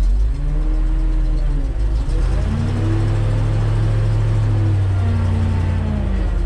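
Dump truck engine with the PTO engaged, revving up about two seconds in, holding, then easing back down, as it drives the hydraulic hoist raising the dump bed.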